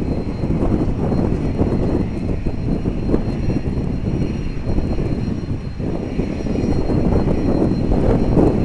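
Cessna Citation Mustang's twin Pratt & Whitney Canada PW615F turbofans at takeoff power, a steady low growling roar with a thin steady high whine over it, growing a little louder near the end.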